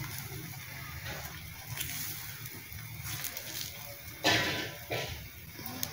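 Metal spoon spreading batter across a hot iron tawa, scraping against the griddle, with one short louder scrape about four seconds in and a smaller one just before the end. A steady low hum runs underneath.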